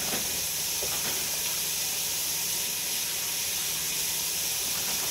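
Kitchen faucet running a steady stream of water into the sink, an even hiss throughout.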